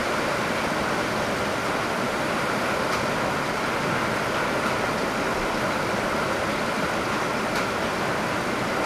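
Rainwater pouring from a downpipe in heavy rain: a steady, unbroken rush of water.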